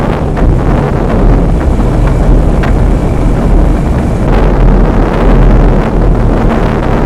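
Wind buffeting the microphone: a steady, loud low rumble, with a few faint clicks.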